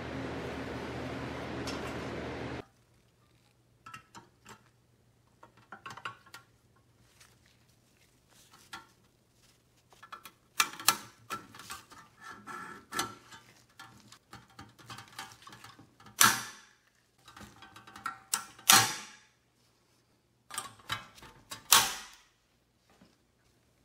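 An oven's fan runs steadily and cuts off suddenly a couple of seconds in. Then come scattered metallic clicks, clinks and rattles as the painted sheet-steel parts of a toy locomotive are fitted together by hand. A few sharper knocks are loudest in the second half.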